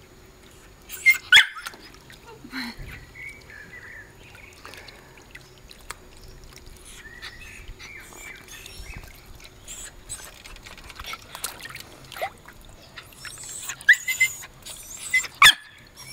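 Shetland sheepdog barking in short sharp bursts, a couple about a second in and several more near the end, with high whining in between, over light splashing of water.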